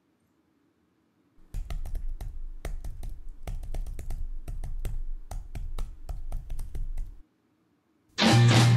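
Computer keyboard typing: rapid, irregular key clicks for about six seconds. Near the end, loud rock music with guitar starts abruptly.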